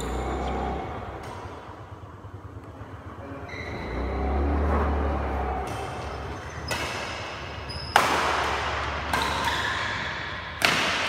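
Badminton rackets striking a shuttlecock in a doubles rally: about four sharp hits in the second half, each ringing briefly in the hall, with short high squeaks of shoes on the court.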